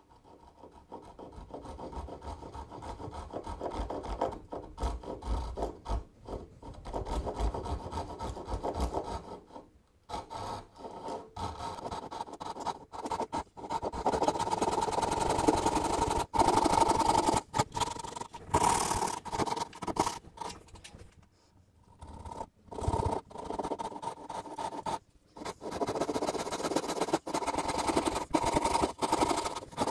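Japanese-style pull saw making rip cuts down the sides of a dovetail in a board held upright in a vice. It gives runs of steady rasping strokes through the wood, with short breaks between cuts about ten and twenty-one seconds in.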